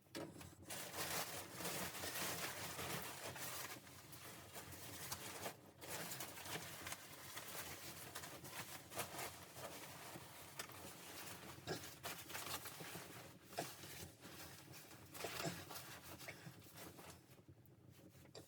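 Rustling, crinkling handling noise with many scattered sharp clicks, loudest in the first half and fading out near the end.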